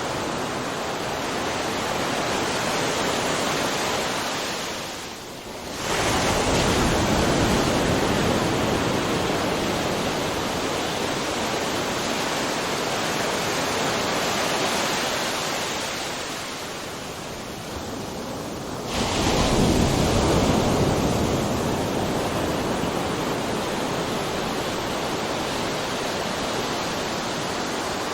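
Ocean surf: a steady wash of breaking waves, with brief lulls about five seconds in and again around seventeen seconds. Each lull is followed by a sudden loud surge of a wave crashing, at about six and nineteen seconds.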